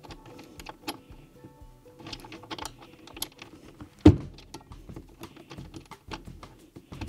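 Irregular light clicks and taps of hand assembly work on the wooden frame of an IKEA Ektorp armchair, with one loud knock about four seconds in. Faint background music plays underneath.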